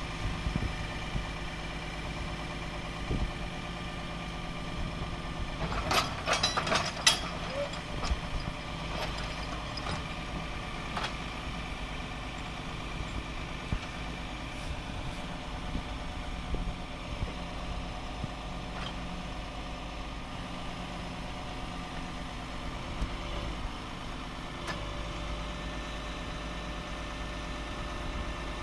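PACCAR PX-8 8.3-litre diesel of a Peterbilt 337 crane truck idling steadily while its hydraulic knuckle-boom crane is worked. About six seconds in there is a short burst of rattling metallic clicks, and near the end a new steady tone comes in.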